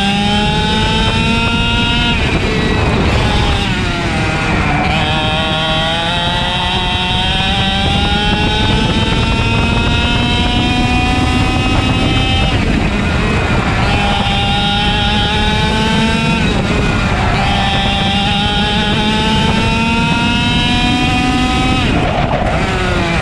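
Two-stroke racing kart engine heard onboard at full race pace, its revs climbing steadily along each straight and dropping off sharply as the driver lifts for a corner, four times.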